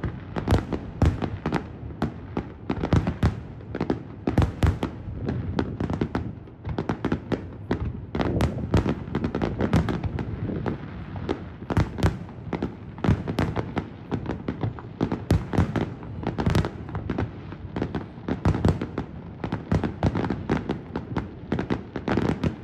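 Fireworks display: aerial shells bursting in a rapid, irregular barrage of bangs, several a second.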